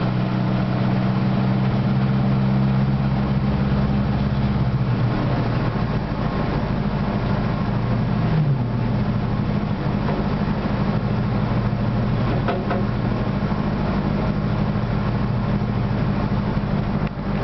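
Zastava Yugo 1.3's four-cylinder petrol engine running at steady revs while driving, heard from inside the cabin, with a brief change in pitch about eight seconds in.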